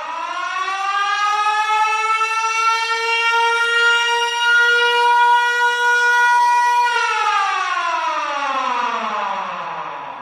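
Warning siren sounding the alarm for an earthquake drill. One wail: the pitch rises over the first couple of seconds, holds steady for about five seconds, then falls slowly away.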